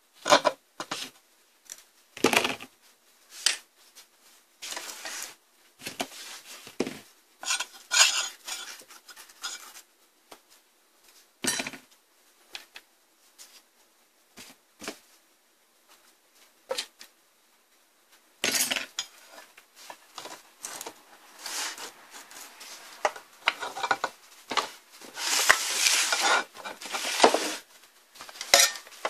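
Hand tools and the metal inverter housing being handled during bench disassembly: irregular metallic clinks, clicks and short scrapes, busiest near the end.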